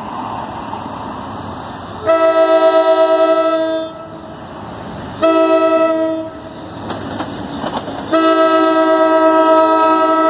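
NJ Transit locomotive's multi-chime air horn sounding the grade-crossing signal as the train approaches: a long blast, a short one, then another long one that starts near the end. Between the blasts the rumble of the oncoming train can be heard.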